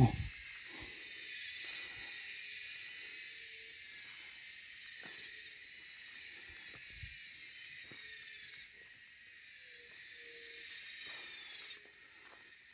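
Insect chorus in the surrounding vegetation: a steady, high-pitched buzzing hiss, easing off toward the end. A few faint short low notes and soft knocks come and go under it.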